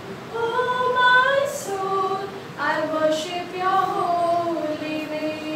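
Female voices singing a slow melody in long held notes.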